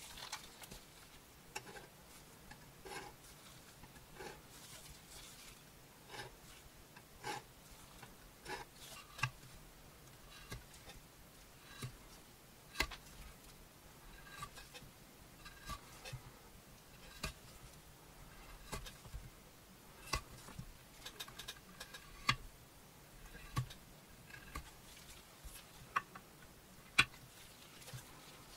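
Skiving knife shaving the edge of a leather piece on a glass plate: irregular scrapes and sharp clicks, the sharpest a little before the end.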